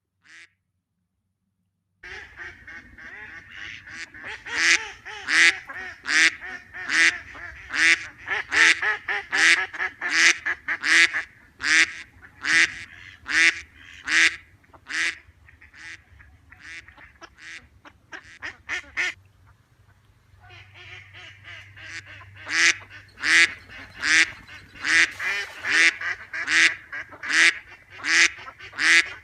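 Ducks quacking in a long run of loud, repeated quacks, about two a second, beginning after a couple of seconds of silence and pausing briefly about two-thirds of the way through.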